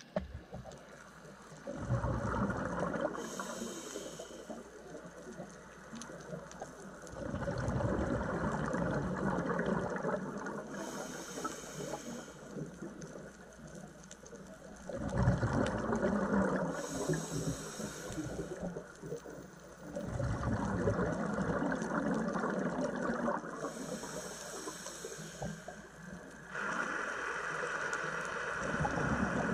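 Scuba diver's regulator underwater: exhaled bubbles rush and gurgle in swells every five to eight seconds, with a hiss between them.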